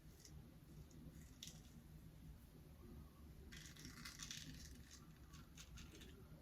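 Razor scraping through lather and stubble on a shaving pass: faint crackling strokes, denser from about halfway in.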